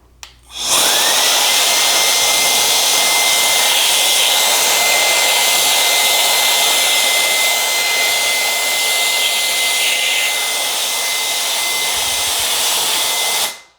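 Electric air duster running at full power: a loud, steady rush of air with a high whine from its fan motor. The whine rises as the motor spins up about a second in, then holds steady until the duster cuts off just before the end.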